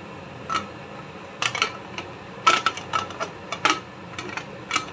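Pressure cooker lid being closed and twisted into lock by its handle: a string of irregular sharp metal clicks and knocks with a short ring, loudest about halfway through.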